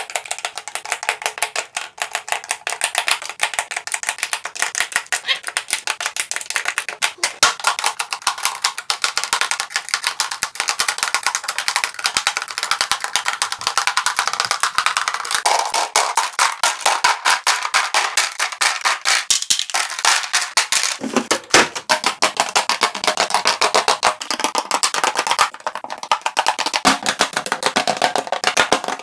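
Rapid, dense clicking and clacking of hard cosmetic items being set one after another into a storage organizer, over background music.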